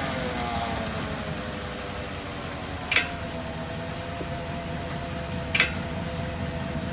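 Porsche Cayenne standing with a steady hum, and a short sharp click twice, about two and a half seconds apart. The clicks are the brake noise heard when the brake pedal is pressed with the car not moving.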